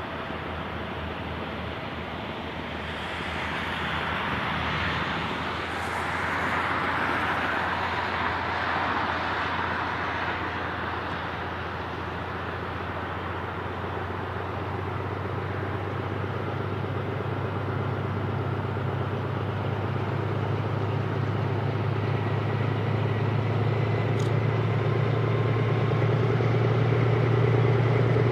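Diesel locomotive of a narrow-gauge train running in the distance, its low engine hum growing steadily louder as the train approaches. A rushing hiss swells and fades a few seconds in.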